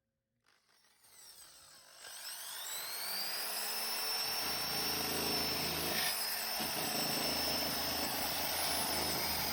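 An electric woodworking power tool's motor starting up: a high whine rises in pitch over about three seconds as it comes up to speed, then runs steadily at full speed.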